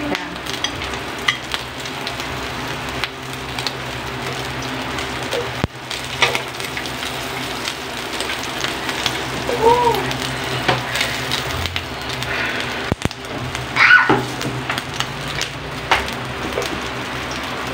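Sliced meat and whole eggplants sizzling steadily on the grill plate of an Imarflex 8-in-1 electric griller, with a few sharp clicks of metal tongs against the plate.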